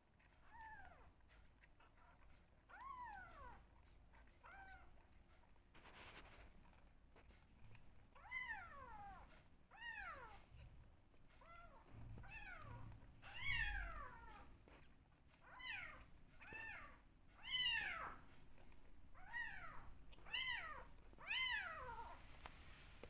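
Young kittens meowing during bottle feeding: a few scattered calls at first, then a quick run of meows from about eight seconds in, each call rising and then falling in pitch.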